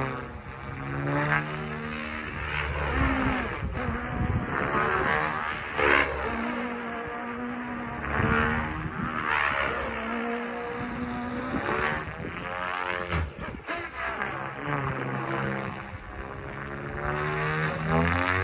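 Goblin Black Thunder 700-size electric RC helicopter with a bidirectional electric tail, flying: a steady rotor and motor hum and whine whose pitch sweeps up and down again and again as it manoeuvres.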